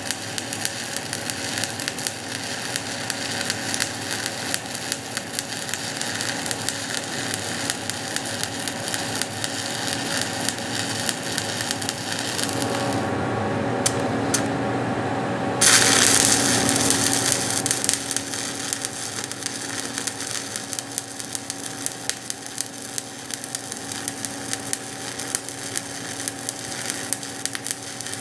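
Shielded metal arc (stick) welding with a 1/8" 7018 electrode at 119 amps, DC electrode positive, the arc crackling steadily while running a cover pass on steel pipe. The crackle drops away for a couple of seconds after about 13 s, with the arc out, then comes back suddenly and louder about 16 s in as the arc is struck again.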